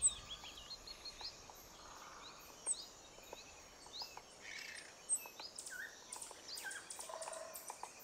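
Faint birdsong: scattered short chirps and quick rising call notes over a soft hiss, with a regular high ticking running behind them.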